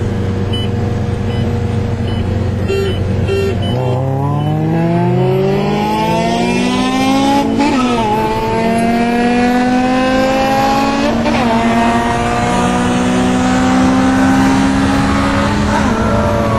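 Four-cylinder car engine under hard acceleration through the gears. It starts as a steady drone, then from about four seconds in the pitch climbs, drops at an upshift, and climbs again, three upshifts in all.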